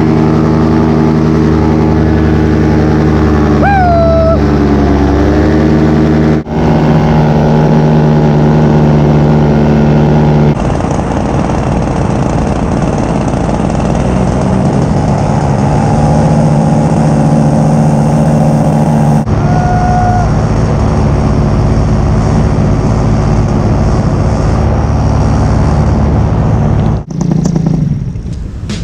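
Paramotor engine and propeller running at steady power, a loud continuous pitched drone. Its tone shifts abruptly a few times, and it falls away near the end.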